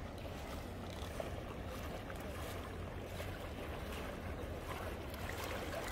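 Shallow seawater lapping and sloshing gently as people wade through it, over a steady low rumble of wind on the microphone.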